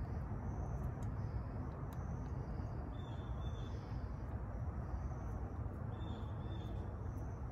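Outdoor ambience: a steady low rumble with faint insects chirping high up. Two short high calls come about three and six seconds in.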